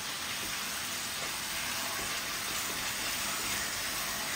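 Chicken curry sizzling steadily in an aluminium pot on a gas hob while it is stirred with a wooden spatula.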